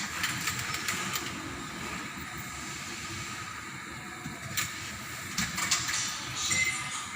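Steady hiss of water being heated to test a car thermostat, with a few sharp clicks and crackles about four and a half to six and a half seconds in.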